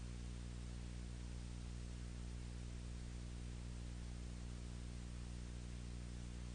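Steady low hum with even hiss and no other sound: the noise floor of a silent film's soundtrack.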